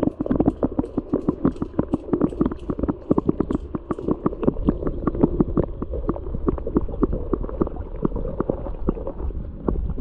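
Water sloshing and bubbling around a camera held underwater, heard as a quick, uneven run of muffled knocks and gurgles.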